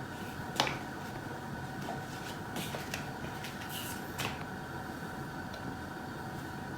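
Low, steady background hum with a few faint clicks.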